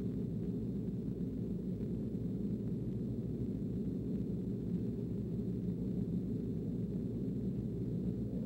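A steady low rumbling drone from the soundtrack, held at an even level with nothing higher above it. A rising tone begins right at the end.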